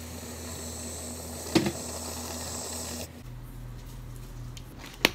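Whipped-cream dispenser spraying cream, a steady hiss that stops about three seconds in, with a sharp click partway through. Another sharp click near the end.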